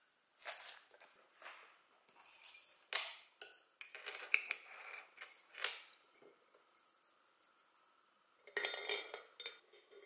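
Stainless steel mesh tea infuser being handled: a string of light metallic clinks and taps as loose tea goes in and the infuser and its lid are handled, then a quick cluster of clinks and rattles near the end.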